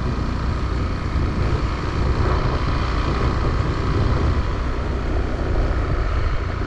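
Steady low rumble of a moving vehicle, with a faint steady hum on top.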